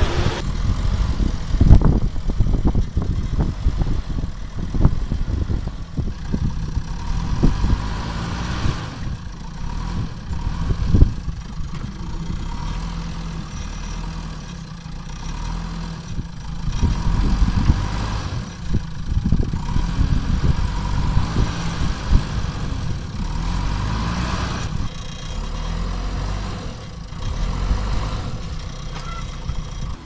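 JCB backhoe loader's diesel engine running under load, swelling and easing as the machine works, with irregular low knocks throughout.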